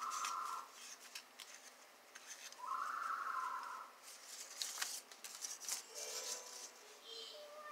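Paper cut-outs crinkling, rustling and tapping against a sheet of paper as a hand moves them, with two breathy whooshing noises, a short one at the start and a longer one about three seconds in.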